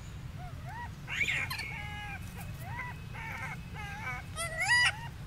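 High-pitched animal calls: many short, level notes with slight rises and falls, several overlapping, and a louder rising call near the end, over a steady low hum.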